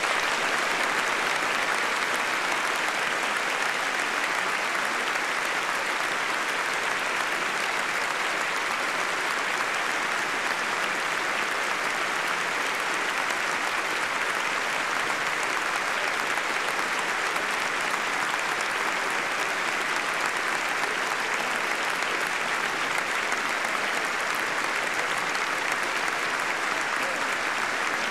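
Large crowd applauding steadily, starting suddenly and keeping up an even, dense clapping.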